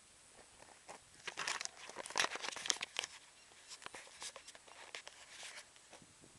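Dry fallen leaves and mulch crackling and crunching underfoot in uneven clusters of sharp crackles, starting about a second in, loudest in the first half and thinning out near the end.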